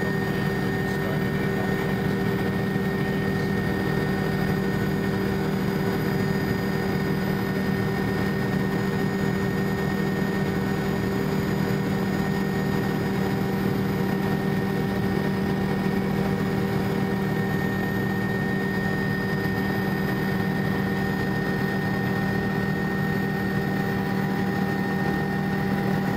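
Steady drone of an aircraft's engine heard from inside the cabin: a constant hum with a few held tones that never changes in pitch or level.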